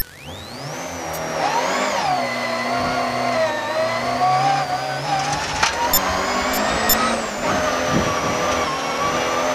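Volvo 240 Group H rally car accelerating hard from a standing start, heard from inside the cabin: the engine revs climb, fall at a gear change about two seconds in, climb again through the next gear and fall again about seven seconds in. A few sharp clicks sound over the engine.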